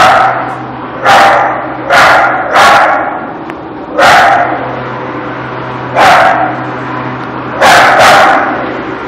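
Dog barking, seven loud sharp barks spaced about one to two seconds apart, the last two in quick succession, over a steady low hum.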